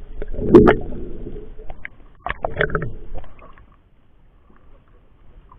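Water splashing and knocking against an action camera at the waterline, with sharp clicks and low rumbles in irregular bouts, as water streams off a fishing net being hauled into a boat. It goes quiet a little past halfway.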